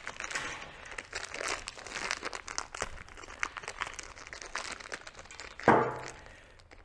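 Packaging crinkling and tearing as a new BT30 collet chuck is unwrapped by hand, a steady patter of small crackles, with one short louder sound near the end.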